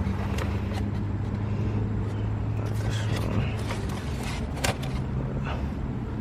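Steady low hum of an idling car engine, with scattered small clicks of handling; a sharper click stands out about four and a half seconds in.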